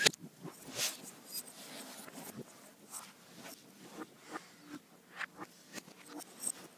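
Scratchy rustling and scuffling of a dog and a cat wrestling on a bedspread, in quick irregular strokes about two or three a second. A single sharp knock right at the start is the loudest sound.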